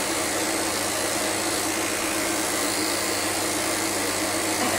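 Electric dog grooming clippers running with a steady hum as they are worked through the fur of a dog's leg.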